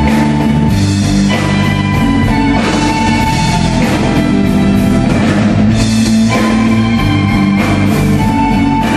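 Violin playing a held, singing melody over a live band accompaniment with guitar and drums.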